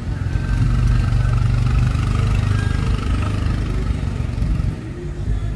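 A motor vehicle's engine running close by, loudest in the first three seconds and then easing off: street traffic passing.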